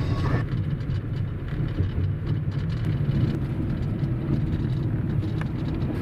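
Road noise heard from inside a car cabin while driving on a wet gravel road: a steady low rumble of tyres and engine.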